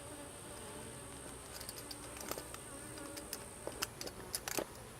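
Honeybees buzzing around an open hive frame: a steady, wavering hum of many bees, with a few faint clicks.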